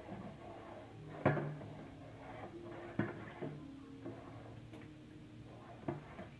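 Metal pole stirring soapy water in a plastic tub and knocking against the tub: a sharp knock about a second in, then lighter knocks around three seconds and near the end.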